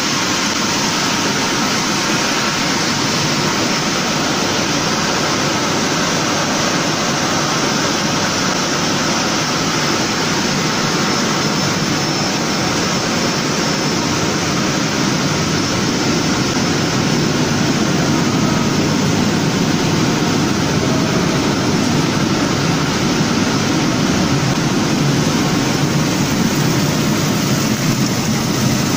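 Potato chips processing line machinery running: a steady, even rushing noise that gets a little louder about two-thirds of the way in.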